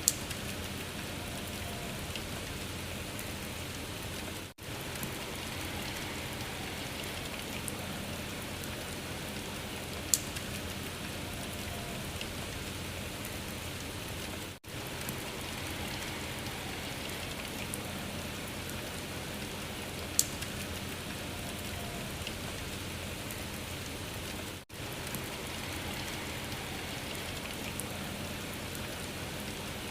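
Steady rain falling on a surface, as a short recording looped about every ten seconds. There is a sharp click at each repeat and a brief drop-out midway between the clicks.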